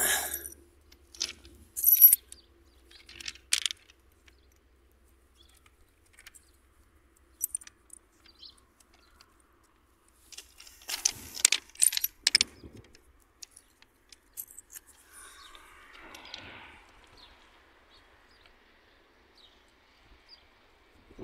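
Scattered clicks and scrapes of a hand handling a five-rupee coin and the ballast stones on a concrete railway sleeper, loudest about two seconds in and again in a cluster around eleven to twelve seconds.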